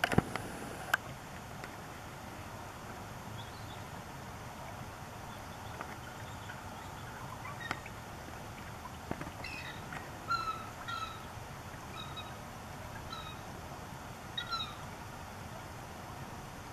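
Bald eagle giving a run of short, thin chirping call notes, in twos and threes, through the second half. A few sharp clicks near the start.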